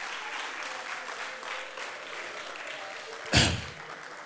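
Audience applauding, with voices in the crowd, after a punchline at a stand-up comedy show. A short loud thump comes about three seconds in.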